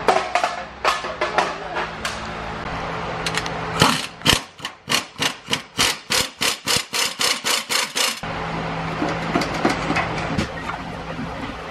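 Air impact wrench under the RV, hammering in a quick run of short, evenly spaced bursts, about four or five a second, for about four seconds, as bolts on the Ford E4OD transmission are worked loose. Scattered light clicks come before it, with steady shop noise before and after.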